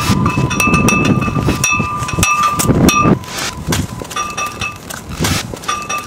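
Cast-iron drain grates ringing like bells as electromagnetic bell hammers strike them from below: a quick, uneven run of metallic clangs, several a second, each leaving a ringing tone. After about three seconds the strikes thin out and get quieter.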